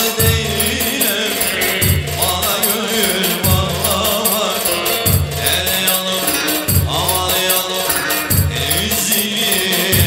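Live Turkish folk dance music on the bağlama, its melody wavering over a deep low beat that lands about every second and a half and a fast, steady percussion rhythm.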